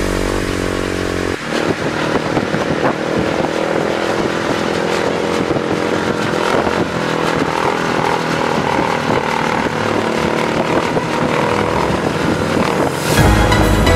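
Supermoto motorcycle engine running on the throttle as the bike is held up in a wheelie, its pitch shifting as the throttle is worked. Music plays for about the first second and comes back just before the end.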